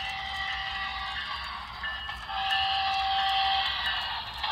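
Sound-equipped model GE Evolution Series diesel locomotive running past, its sound unit blowing a multi-chime air horn in two long blasts, one at the start and one from about two seconds in, over the steady rumble of the running train.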